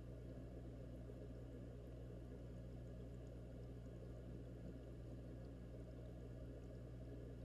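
Steady low hum and muffled bubbling from an aquarium's air stones and pump, heard underwater through a camera's waterproof housing.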